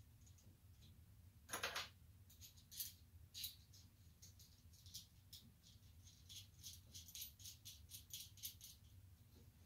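Small metal lamp fittings clicking and rattling as they are handled and threaded onto an electrical cord, with one louder scrape about one and a half seconds in, over a low steady hum.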